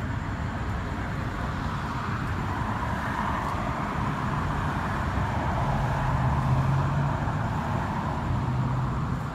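Steady urban traffic noise with a low hum underneath, getting a little louder midway.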